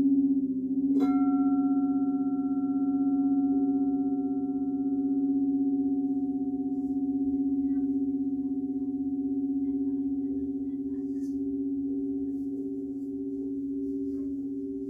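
A large frosted quartz crystal singing bowl rubbed around its rim, sustaining a steady drone with a slow pulsing. About a second in another bowl is struck once with a mallet, its higher ringing tones fading over several seconds, and a second sustained tone joins soon after.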